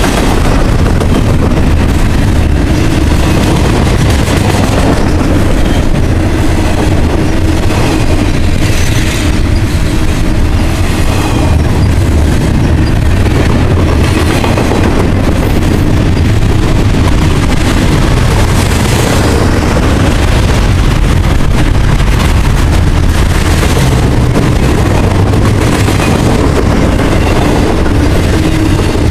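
Double-stack container train's loaded well cars rolling past: a loud, steady rumble of steel wheels on rail, with irregular clatter and rattling from the cars.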